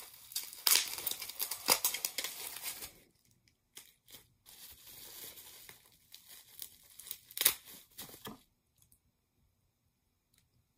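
Packaging being crinkled and torn by hand as an item is unwrapped. Dense crinkling for about three seconds, then softer rustling with a sharp crackle about seven and a half seconds in, stopping shortly after.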